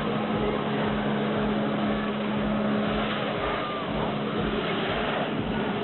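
Personal watercraft engine running hard to drive a flyboard, a steady drone under the noise of the water jets blasting from the board. The engine tone eases slightly a little past halfway.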